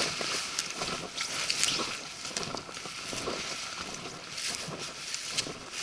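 Leafy brush and branches rustling and scraping against a hiker and the camera while pushing through dense undergrowth, with many scattered snaps and crackles of twigs and footsteps.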